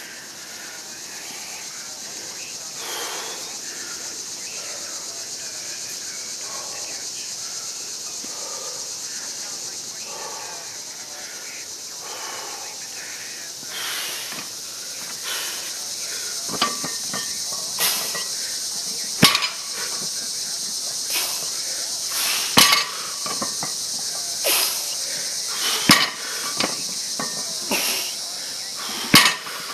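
A 315 lb loaded barbell being deadlifted for quick repetitions, its plates knocking down onto a rubber mat with a sharp clank about every one and a half seconds, starting about halfway through. A steady high hiss runs underneath.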